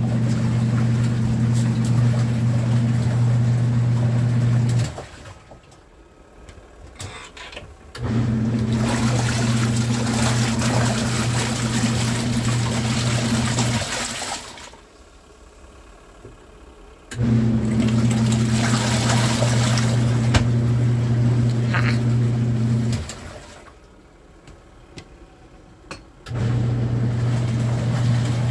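Costway twin-tub portable washing machine agitating a load of towels: its wash motor hums steadily with water churning for about five or six seconds, stops for about three, then starts again. There are four runs and three pauses, as the wash cycle alternates its agitation.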